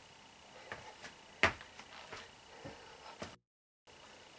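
Feet landing from lateral and vertical jumps on foam exercise mats: a handful of soft, separate thuds, the loudest about a second and a half in. The sound cuts out to dead silence for about half a second near the end.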